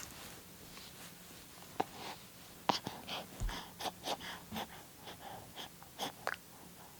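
A young baby's small breathy sounds: a series of short, irregular gasps and snuffles.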